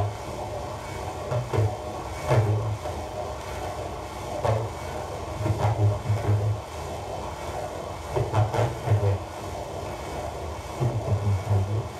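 Experimental electronic sound performance played through a loudspeaker. Short groups of low pulsing thumps come every couple of seconds over a steady rumbling noise, with scattered clicks.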